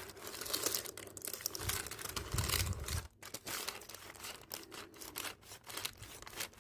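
A clothes iron sliding and pressing over parchment paper laid on a leather bag, the paper crinkling and rustling in irregular strokes, with a low rumble of the iron bearing down about two seconds in.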